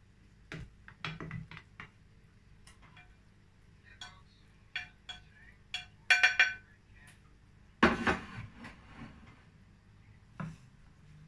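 Plastic slotted spatula tapping and scraping against a glass baking dish and a plate while a portion of shepherd's pie is lifted out: scattered clicks and clinks, a ringing clink about six seconds in and a louder clatter about two seconds later.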